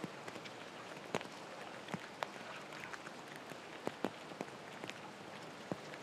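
Steady rain falling, with scattered sharp taps of drops landing close by.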